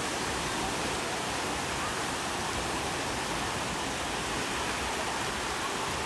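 Small waves breaking and washing through shallow surf, a steady rushing with no distinct splashes.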